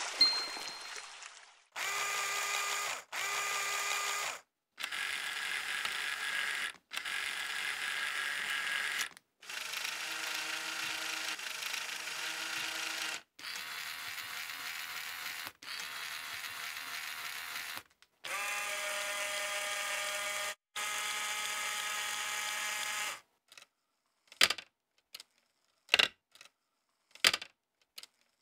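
Lego Technic electric motors driving the bridges' plastic gear trains: a series of separate whirring runs, each a couple of seconds long with a steady whine, starting and stopping abruptly. Near the end, a string of short sharp clicks.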